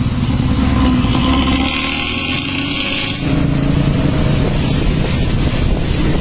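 Diesel bus engine running through a modified 'ngorok' (snoring) exhaust, a steady low rumble. About two seconds in the rumble drops back for a second and a half under a loud hiss, then comes back.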